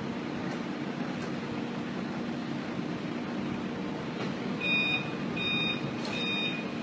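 A heavy vehicle's engine running steadily; about two-thirds of the way through, a reversing alarm starts beeping, a little over once a second.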